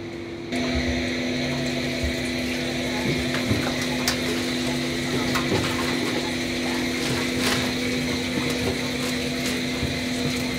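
Steady hum of kitchen equipment with a faint hiss, coming in about half a second in, with occasional light clicks and knocks.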